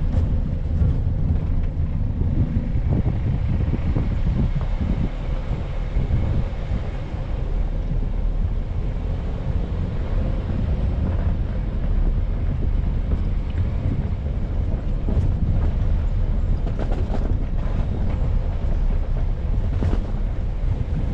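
Vehicle engine running steadily with a low rumble as it drives, with wind buffeting the microphone.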